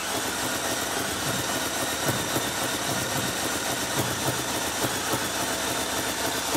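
Carburetted engine with a belt-driven camshaft geared to turn twice per crankshaft turn, turning over on the starter with the throttle worked by hand, with irregular knocks standing out. It will not run: the valves open far too often.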